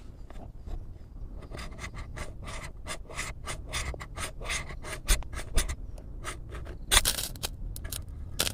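Rhythmic scraping strokes from a hand tool, about four a second, with a louder, denser cluster of strokes near the end.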